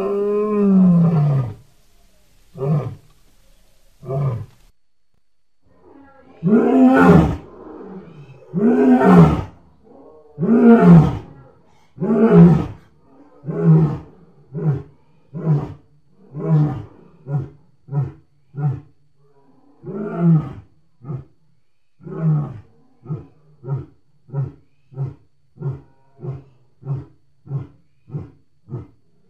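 Made-up stegosaurus calls, a custom dinosaur sound effect: a series of low, pitched roars, each sliding down in pitch. One long call opens, two short ones follow, then a run of longer calls, and in the second half a quick string of short calls, more than one a second.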